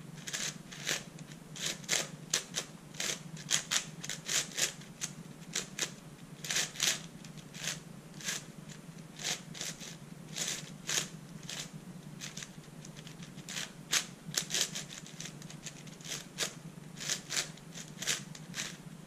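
Layers of a 4x6x8 shapeshifting cuboid twisty puzzle, built from an MFJS Meilong 8x8 with 3D-printed plastic extensions, being turned by hand in half-turns while it is scrambled. The sound is a run of plastic clicks and clacks in irregular clusters of quick turns. The pieces have been smoothed so the turns do not scratch.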